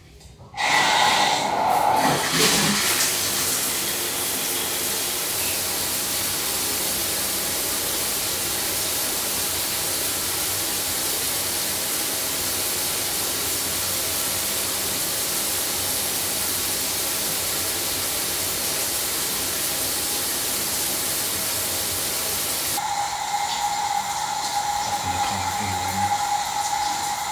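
Shower running: a steady hiss of water spray that comes on about half a second in. About 23 seconds in the sound changes, the hiss thinner and a steady whine added.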